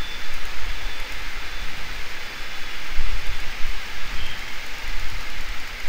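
Steady hiss with a low rumble underneath: background noise picked up by the recording microphone between the narrator's words.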